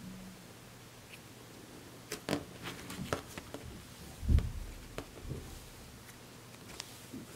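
Thick cloud slime being squished and pulled apart by hand: soft sticky crackles and clicks, several in quick succession about two to three and a half seconds in and a few more near five seconds, with a dull low thump just past four seconds.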